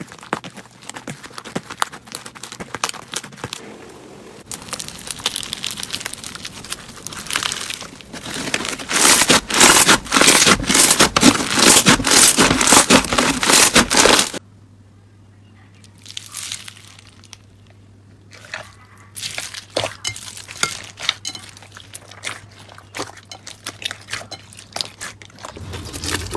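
Slime being squeezed and pressed by hand, giving off dense crackling and crunching clicks. It grows louder about a third of the way in, then cuts abruptly halfway through to a quieter stretch of sparser crackles.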